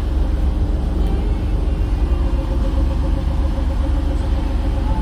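Car engine idling steadily, a deep even rumble.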